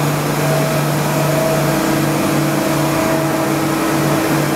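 Mazak Integrex i-200ST multi-axis CNC turning and milling center running a machining cycle behind its closed door: a steady machine hum over a constant spray hiss. About two seconds in, a low tone in the hum starts pulsing about twice a second.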